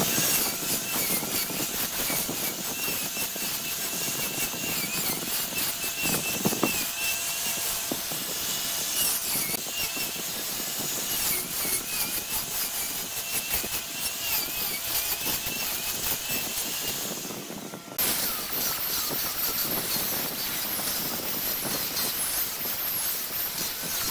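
Wood lathe turning a workpiece while a hand-held cutting tool scrapes the spinning wood, with a high wavering squeal over a steady noisy rasp. The sound changes abruptly about 18 seconds in.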